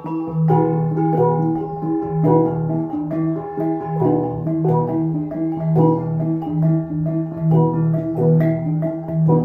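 Central Highlands cồng chiêng gong ensemble playing: overlapping pitched gong strikes that ring on in a repeating rhythm, over a steady, pulsing low gong tone.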